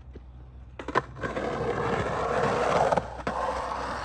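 Skateboard wheels rolling over rough concrete. There is a sharp clack about a second in, then the rolling noise grows louder, peaking just before three seconds, with a knock soon after before it eases off.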